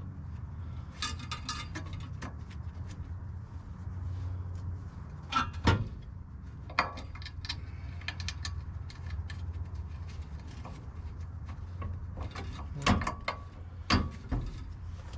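Intermittent metallic clanks, taps and clicks of the welded stainless steel exhaust being fitted back into the truck, over a steady low hum. The loudest knock comes about halfway through, and two more come near the end.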